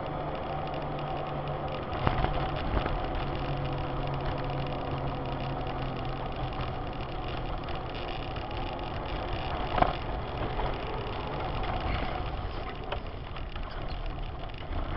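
Car engine and tyre noise heard inside a moving car on a snow-covered road, steady throughout, with one short sharp knock about ten seconds in.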